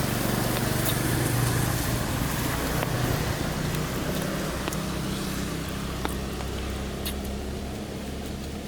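A motor vehicle's engine hum, loudest early on and slowly fading away, over a steady hiss, with a few faint clicks.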